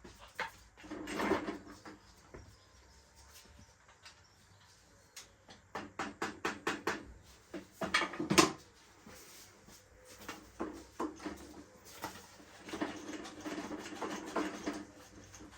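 Hand tools and metal parts clicking and knocking as a motorcycle is being dismantled, with a quick run of clicks about six seconds in and one louder knock shortly after.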